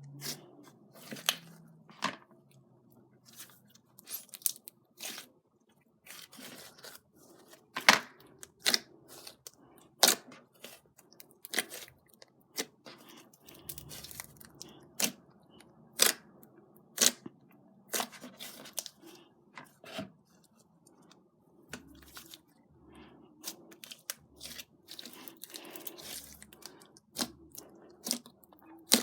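Slime being squeezed and poked by hand, giving off irregular sharp pops and crackles, a few loud snaps a second in busy stretches.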